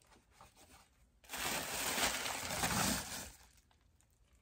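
Crinkly rustling of packaging being handled, starting about a second in and lasting about two seconds.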